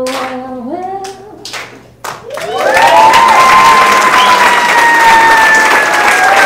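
A voice sings held, stepping notes over scattered hand claps. About two and a half seconds in, loud crowd applause breaks out, with a long, slowly falling high call held over it.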